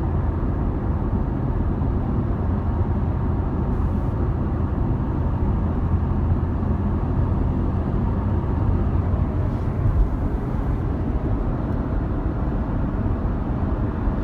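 2015 Corvette Stingray's 6.2-litre LT1 V8 running steadily under light throttle, a low even rumble. This is the condition that brings out the car's rattle, which was traced to a failing serpentine belt tensioner.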